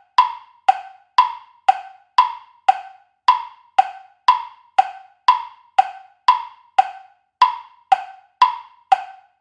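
Tick-tock countdown timer sound effect: wood-block-like clicks, about two a second, alternating between a higher and a lower pitch.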